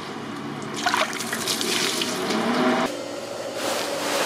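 Running water, a steady hiss that grows louder near the end.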